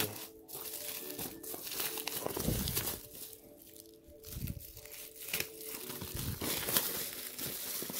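Black plastic-bag wrapping being torn and crumpled off a cardboard box, in uneven bursts of crinkling with a short lull about halfway through.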